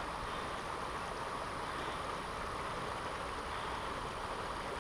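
Creek water running steadily over rocks: an even rushing sound that neither rises nor falls.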